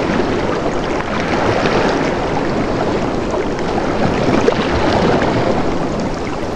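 Steady rushing of flowing water, a dense even wash with no pauses.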